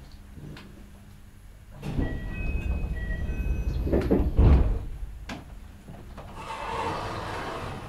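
Commuter train standing at a station, heard from inside the car: its sliding doors rumble and thud, loudest about four and a half seconds in, with a few short high chime tones, then a hiss of air near the end.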